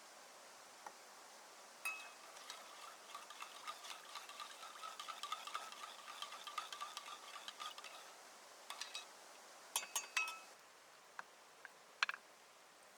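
A metal spoon stirring quickly in a ringing metal bowl, a run of rapid small clinks lasting about six seconds. It is followed by a few separate clinks of metal on metal, the sharpest near the end.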